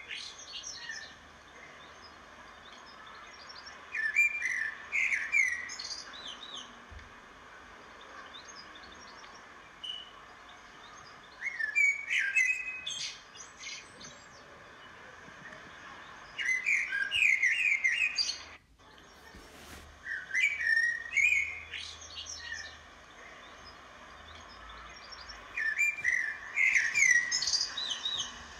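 A small songbird singing in short phrases of quick, sliding chirps, five phrases a few seconds apart, over a faint steady background hiss.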